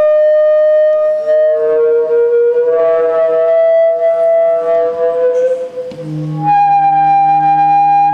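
Singing-flame tubes: vertical tubes sound steady whistling tones while a handheld gas burner's flame is held inside their lower ends. Two tones overlap at first, the lower one slowly rising. About six seconds in, a higher tone takes over above a deep hum.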